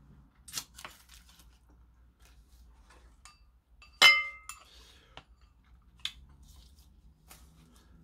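Wooden chopsticks against a ceramic rice bowl: one sharp, ringing clink about four seconds in, with a few lighter clicks and taps around it.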